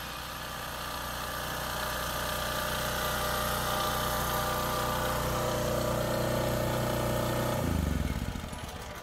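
Portable generator's small single-cylinder engine running steadily, then winding down with falling pitch about eight seconds in.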